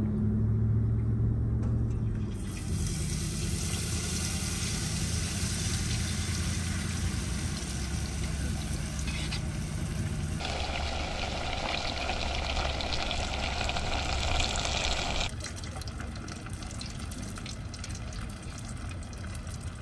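Battered trout frying in hot oil: a steady sizzle that starts a couple of seconds in, turns louder and brighter about ten seconds in, and eases back about five seconds later.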